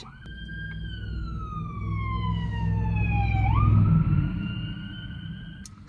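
Fire engine going by with its siren wailing, heard from inside a car: the siren's pitch slides slowly down, then sweeps back up about three and a half seconds in. Under it the truck's engine rumbles, loudest as it passes about four seconds in.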